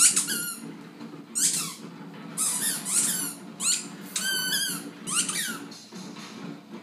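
A squeaky dog toy being squeezed over and over in a puppy's jaws: short high squeaks about once a second, each dropping in pitch.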